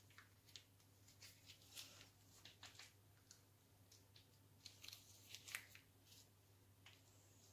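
Faint crinkling and crackling of a plastic chocolate-glaze packet squeezed by hand, in irregular short ticks over a low steady hum.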